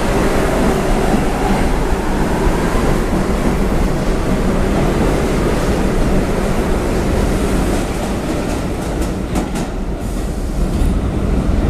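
R62 subway train pulling out of the station, running past with a steady rumble of wheels and motors, and a quick run of clacks over rail joints near the end.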